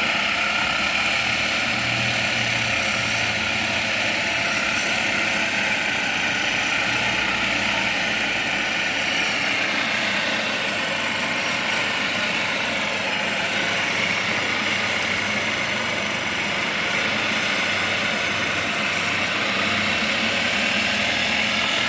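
A motor-driven workshop machine running steadily, a continuous high-pitched whine and noise without pauses.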